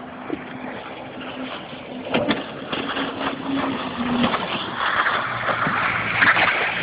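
Jet ski engine running, a steady hum at first, then getting louder from about halfway through as it comes closer, with a rising hiss of rushing water and spray.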